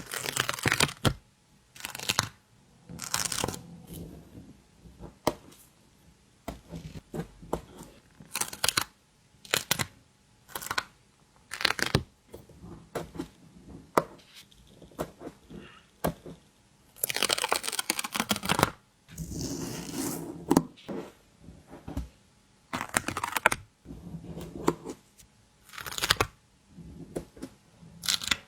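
Stickers being peeled off their backing sheet, with crinkling of the sheet and light taps, in a series of short sharp peels and crackles. Two longer peels come about two-thirds of the way through.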